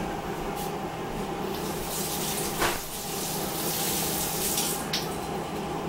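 Kitchen sink faucet running, water rushing into the sink for a few seconds from about a second and a half in until shortly before the end, with a knock partway through.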